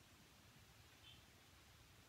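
Near silence: room tone, with one faint, short high-pitched chirp about a second in.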